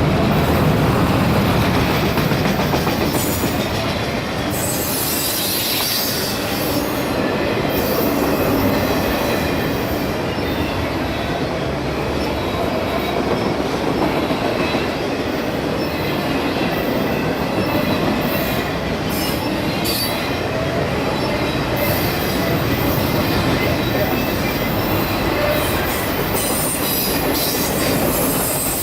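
CSX freight train rolling past: the steel wheels of its cars running steadily on the rails, with clicking over the rail joints.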